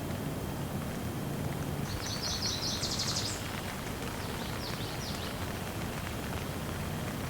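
Shower water running steadily with a constant hiss. A bird chirps in a quick high trill about two seconds in, and again more briefly near five seconds.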